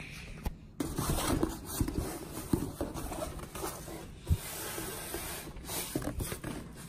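Corrugated cardboard shipping box being handled and its flaps pulled open: scraping and rustling cardboard with a few sharp knocks, starting about a second in.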